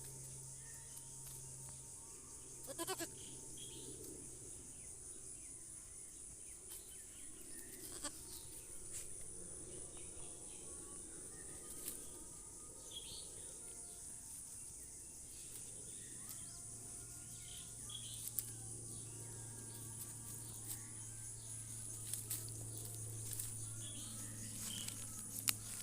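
Goats bleating now and then, in short separate calls, over a steady high hiss and a low hum.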